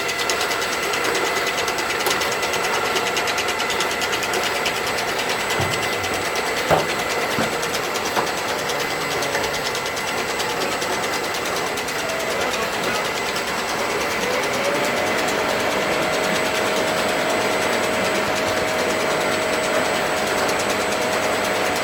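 3D printer's motors running steadily with a fast, even ticking. About two-thirds of the way in a whine rises and then holds at a steady pitch.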